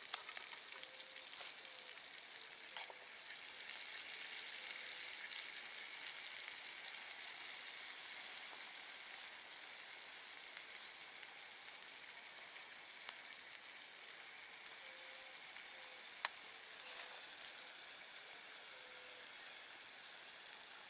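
Ají amarillo and ají mirasol sizzling as they fry in oil in a frying pan. It is a steady sizzle that swells a few seconds in and then eases, with a few small crackles.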